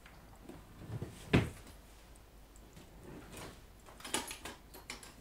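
Handling knocks and clicks from a butane gas soldering iron being picked up and moved on a felt work mat, the loudest knock about a second and a half in, with a few lighter clicks later.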